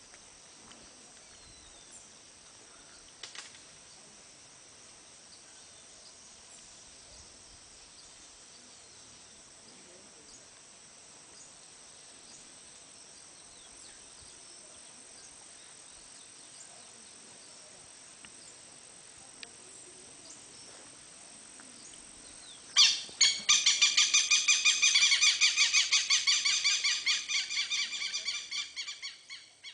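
A bird calling in a loud, rapid series of even pulses that starts suddenly about 23 seconds in and fades away near the end, over a faint steady high-pitched background.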